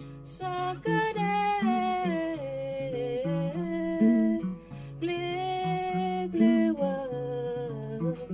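Live music: a woman singing two long, falling melodic phrases over acoustic and electric guitar, with a short break in the voice about halfway through.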